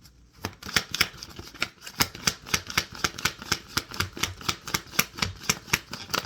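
Deck of tarot cards being shuffled by hand: a quick, steady run of crisp card slaps, about four a second, starting about half a second in.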